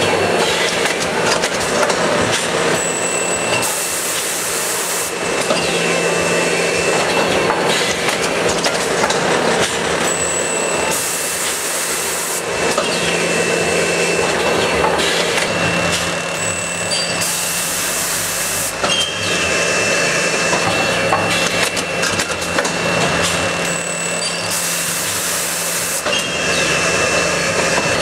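Potting press and seeding line machinery running steadily, with a constant low hum and a thin high whine. A short hiss of about a second and a half comes back about every seven seconds, four times.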